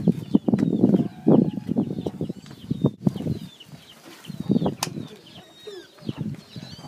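Small birds chirping throughout, many short high chirps, over louder rustling and knocks.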